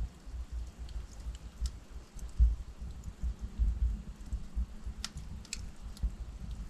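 Logs burning in a fireplace, crackling with irregular sharp pops and snaps, a cluster of them about five seconds in, over a low, uneven rumble.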